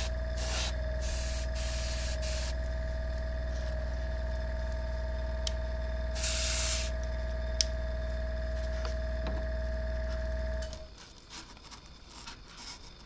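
Airbrush spraying primer in short hissing bursts, several in the first couple of seconds and one more around six seconds in, over the steady hum of a small electric motor that cuts off abruptly near the end.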